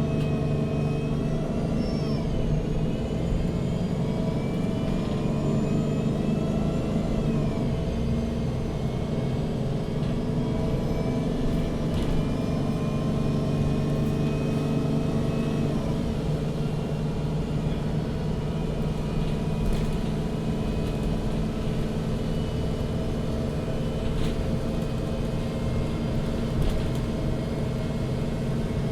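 MAN NG 313 CNG articulated city bus under way, heard from inside: the natural-gas engine and drivetrain run with a steady low hum and a whine that climbs in pitch at the start, then drops twice, about a quarter of the way in and again about halfway, as the bus changes speed.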